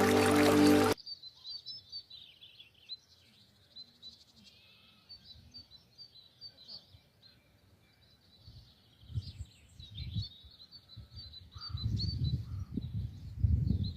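Music stops abruptly about a second in, leaving a steady chorus of many small birds chirping high and fast. Low rumbling bumps come and go in the second half, loudest near the end.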